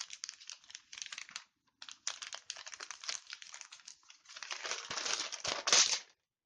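A Kleenex tissue crinkling and rustling as it is handled, in stretches of dense crackle with two short pauses. The crackle is loudest just before it stops near the end.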